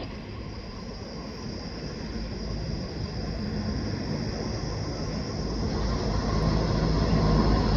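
Jet airliner engine rumble growing steadily louder as the aircraft nears.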